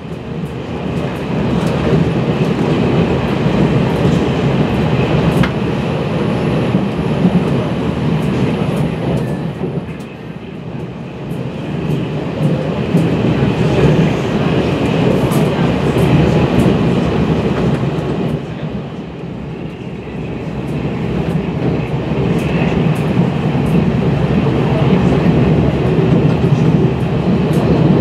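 Taiwan Railway Fu-Hsing express passenger carriage under way, heard from on board: a steady low rumble of wheels on rail with faint clicking. The rumble eases off briefly twice, about a third and two-thirds of the way through.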